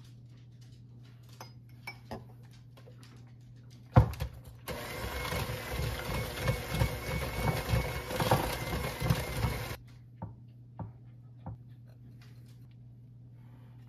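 Electric hand mixer running for about five seconds, its beaters churning eggs into creamed butter and sugar, then switching off abruptly. A sharp knock comes just before it starts, with light clicks and taps before and after.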